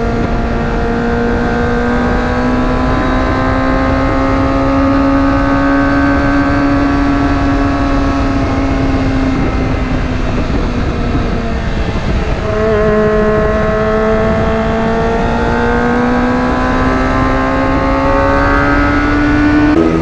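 Kawasaki ZX-25R's 249 cc inline-four running at high revs through an aftermarket slip-on exhaust with its dB killer fitted, heard while riding. The engine note holds fairly steady, drops a little about halfway through, then climbs again as the bike pulls, over low wind rumble.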